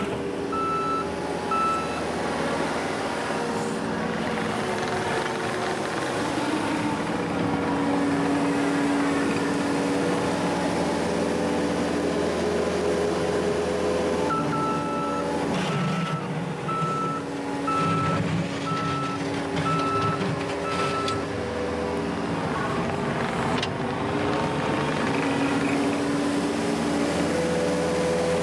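New Holland C232 compact track loader running, its diesel engine rising and falling in pitch as the machine is driven and worked. The reverse alarm beeps a little faster than once a second while it backs up, briefly just after the start and again for about seven seconds in the middle.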